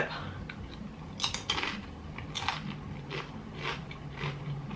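Close-up crunching of a tortilla chip being bitten and chewed: a couple of sharp crunches about a second and a half in, then softer chewing crunches about every half second.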